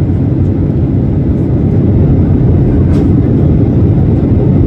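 Airliner noise heard from inside the cabin: a steady, loud low rumble of engines and rushing air, swelling a little about two seconds in.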